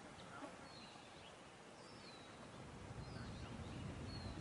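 Birds chirping faintly: short downward-sliding whistles about once a second, over steady low background noise.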